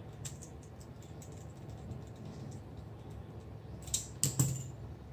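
Light clicks and taps of small tools and parts being handled on a camera body, with a cluster of three or four louder, sharper clicks about four seconds in.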